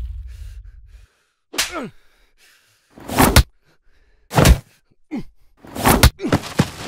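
Added fight sound effects for punches: falling swishes, and three loud, sharp punch impacts about a second and a half apart, the last near the end.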